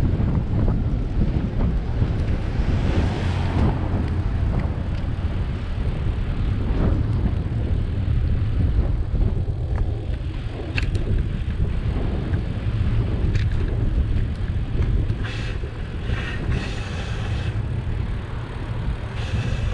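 Wind rumbling on the microphone of a camera carried on a moving bicycle, a steady low noise mixed with road noise from the ride.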